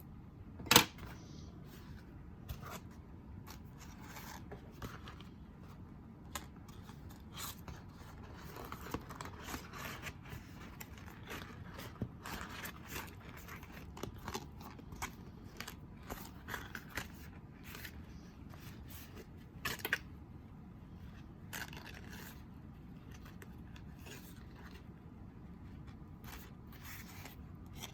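Quiet, irregular clicks, scrapes and snips of hands working faux leather envelopes at a sewing machine, with one sharp click about a second in.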